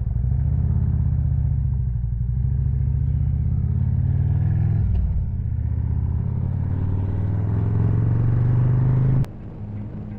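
2013 Harley-Davidson Road Glide Ultra's V-twin engine pulling away and accelerating, its pitch climbing, with a gear change about five seconds in before it climbs again. The engine sound cuts off suddenly about a second before the end.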